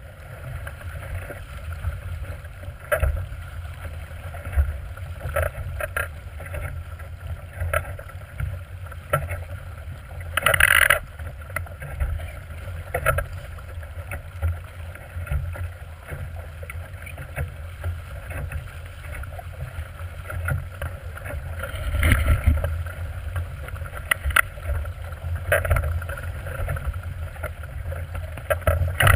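Water rushing and splashing along the hull of a small plywood sailboat driving fast through choppy water, over a steady low rumble of wind on the microphone. The splashes come irregularly, the loudest about ten seconds in and another big surge about twenty-two seconds in.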